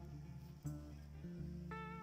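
Background music: a guitar track with held notes over a steady low line.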